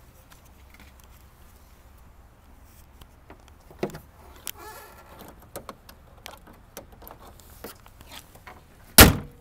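Scattered light clicks and knocks over a faint low rumble, then one loud thump about nine seconds in: the hood of a 2009 Subaru Outback being shut.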